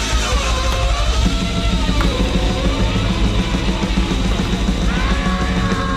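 Loud noisecore music: a dense wall of distorted noise with a heavy low end and slowly wavering, howling tones.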